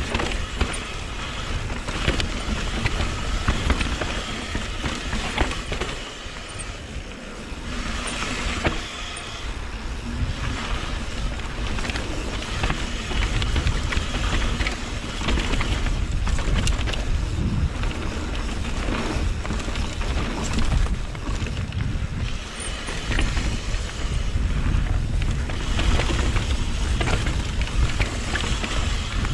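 Mountain bike descending a rough trail: wind buffeting the action camera's microphone, with the steady clatter and rattle of the bike and tyres over the ground.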